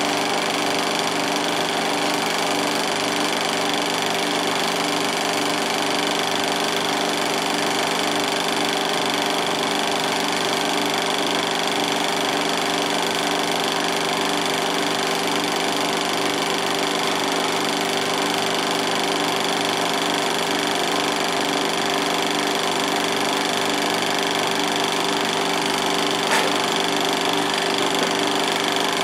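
16mm film projector running steadily, its film-advance mechanism making a fast, even mechanical rhythm. One small click sounds near the end.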